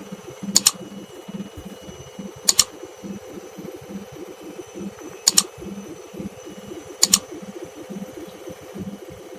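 IFB Senator front-loading washing machine spinning at high speed with a steady hum over a low rhythmic throb, the vibration and noise the owner complains of at full spin. Four sharp double clicks sound through it.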